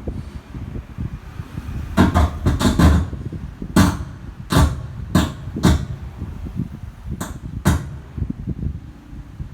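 A series of sharp knocks and taps, a quick cluster followed by about six single strikes, over a low steady rumble.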